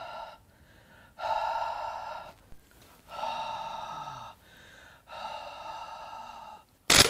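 A man blowing four long, forceful breaths, each about a second long. Near the end there is a single sharp crack, the loudest sound of all.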